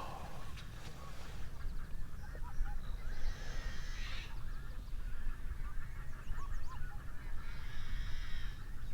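Birds calling repeatedly in short, scattered calls over a steady low rumble.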